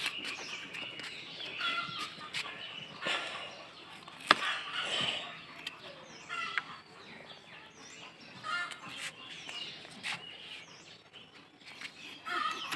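Scattered short bird calls and chicken clucking around a rooftop garden, over faint handling noises as dragon fruit shoots are pruned, with one sharp click about four seconds in.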